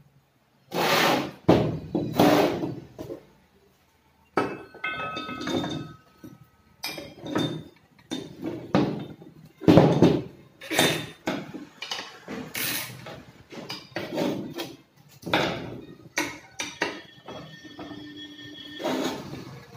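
Irregular metal clanks and knocks as a Sifang power tiller's cooling-fan cowl assembly is handled, turned over and set down on a wooden workbench, a few of them with a brief metallic ring.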